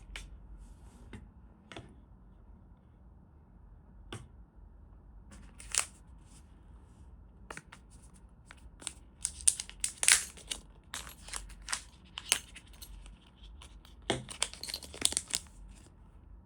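Hands handling palm rest and keyboard parts: irregular sharp clicks and short tearing, crinkling rustles, sparse at first and busiest in the middle and again near the end.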